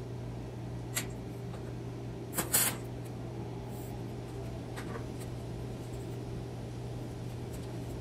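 Steady low hum of shop equipment with a few short knocks of steel tubing being handled on a steel welding table. The loudest is a quick double knock about two and a half seconds in.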